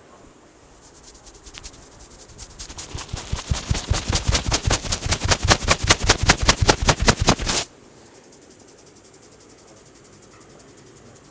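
Barber's hands rapidly slap-tapping on a client's head in a percussive head massage, about six or seven strikes a second. The strikes start soft about a second in, grow steadily louder and cut off suddenly about two-thirds of the way through.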